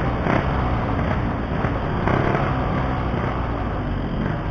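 Yamaha RX-King two-stroke single-cylinder motorcycle engine running steadily at low revs in a traffic jam.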